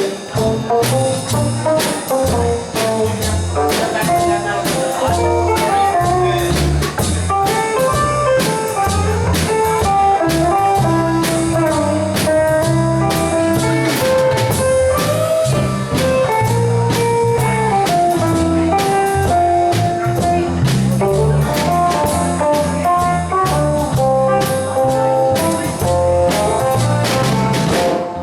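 Live band playing an instrumental break in a slow country song: a lead melody of held notes over a steady drum beat and the rest of the band, with no singing.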